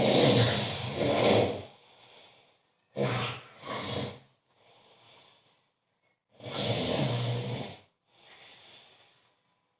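A man snoring very loudly in deep sleep: three harsh, rattling snores about three seconds apart, each followed by a much fainter breath.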